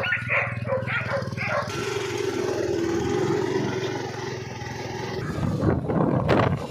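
Several dogs barking in quick succession during the first second and a half, over the steady running of a motorcycle engine. The engine carries on as the motorcycle with sidecar moves off, with a broad rushing hiss of wind and road noise.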